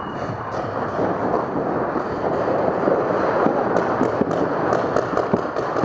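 Paintball markers firing across the arena: a dense crackle of shots and paintballs smacking the inflatable bunkers. In the second half comes a rapid string of close, sharp shots, about five a second.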